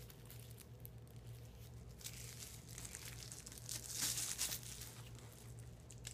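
Faint crinkling and rustling of protective wrapping being picked off a handbag tassel by hand, a little louder about two seconds in and again around four seconds.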